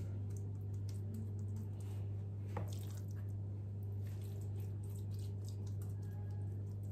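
Hands pressing and spreading raw minced-meat filling over rolled pide dough: faint soft squishing and light pats, over a steady low hum.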